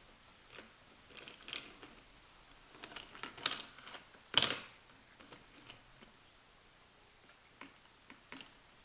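Kittens playing with a toy: scattered light taps and clicks, with a sharper knock about four and a half seconds in.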